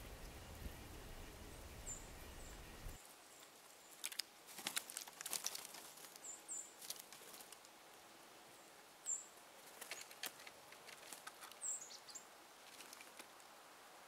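Red squirrel cracking and chewing seeds and nuts close by, heard as bursts of small crunching clicks. Small birds give short, high, thin call notes now and then.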